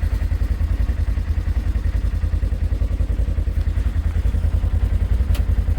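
Polaris General side-by-side's engine idling steadily with an even low pulse, and a single sharp click about five seconds in.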